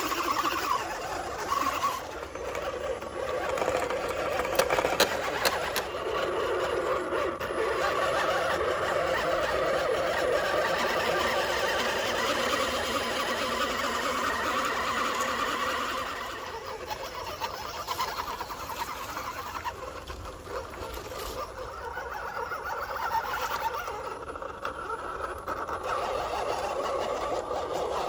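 Electric motor and geared drivetrain of a 1/10 scale RC 6x6 truck whining as it drives, the sound shifting with throttle and dropping back about sixteen seconds in.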